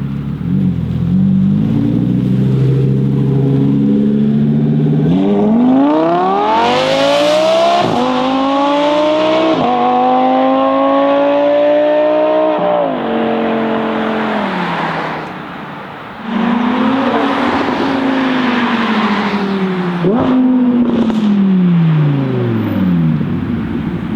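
Audi R8 V10 Performance's V10 engine through an aftermarket Capristo exhaust: a low rumble for the first few seconds, then a hard acceleration with the pitch climbing steeply for about seven seconds before dropping away. A second, shorter burst of acceleration follows, its pitch rising and then falling away.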